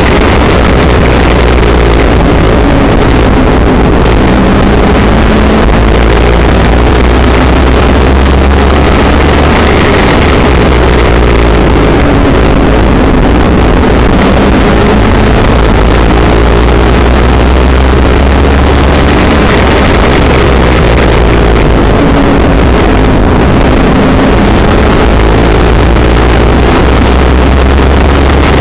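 Legends race car's 1250 cc Yamaha motorcycle engine heard from inside the cockpit at racing speed, its pitch rising and falling as the driver accelerates and lifts. The sound is very loud and overdriven, with wind buffeting on the microphone.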